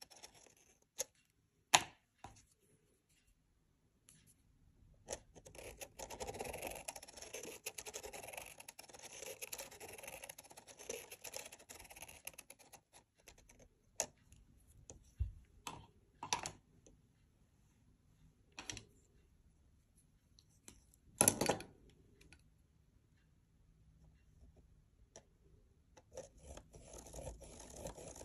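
Felt-tip pen scratching on paper as it is run round inside a plastic spirograph gear, in long stretches, with a few sharp clicks and taps between them, the loudest about three-quarters of the way through.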